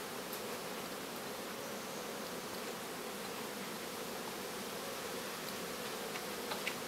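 Steady insect buzzing over an even hiss, with a few faint clicks near the end.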